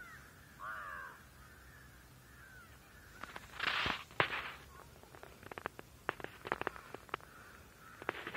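Birds giving a few short calls, then a louder harsh call about three and a half seconds in, followed by a scattering of light clicks and taps.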